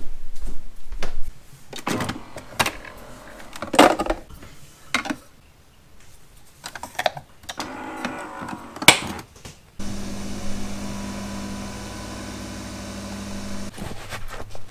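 Scattered knocks and clicks of a cup and machine being handled, then a coffee machine brewing, a steady motor hum for about four seconds that cuts off suddenly.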